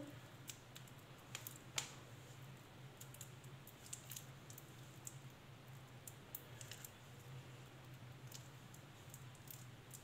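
Faint sticky clicks and squishes of hands squeezing and shaping a soft potato kabab mixture into a roll, over a low steady hum.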